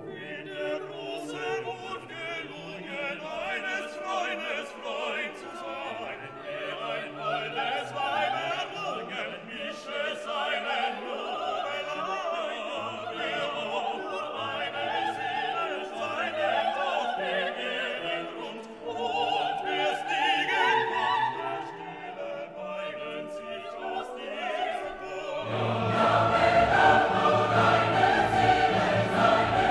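Classical music with operatic singing over an orchestra. It swells louder and fuller near the end.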